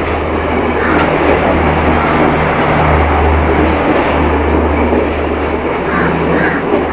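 An S13 diesel multiple unit rolling slowly past along a platform: a steady rumble of coach wheels on the rails over a continuous low drone.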